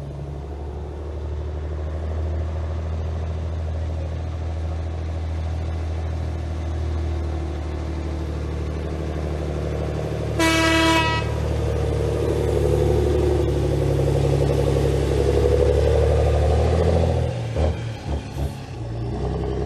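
Heavy truck's diesel engine running as the truck pulls out and comes closer, growing louder, with one short horn blast about halfway through.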